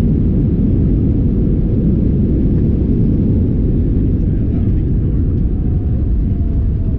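Airbus A320 cabin noise: the steady low rumble of the jet engines and airflow heard from a passenger seat. A faint tone dips slightly in pitch near the end.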